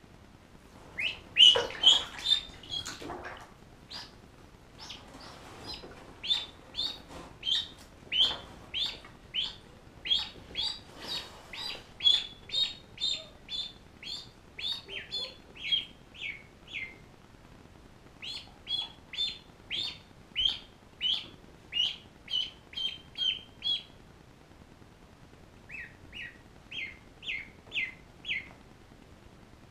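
Ducklings peeping over and over, short high calls that each drop in pitch, about two or three a second, with a short pause about two-thirds of the way through. A little water splashing in the bath in the first few seconds.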